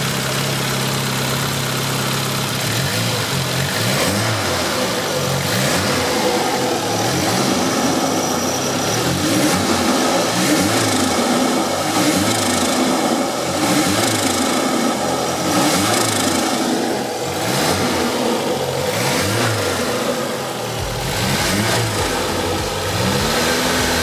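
Turbocharged Toyota 4A-GE four-cylinder running, held at a steady fast idle for the first two seconds or so. It is then revved in short throttle blips, about one a second, with a longer rev near the end.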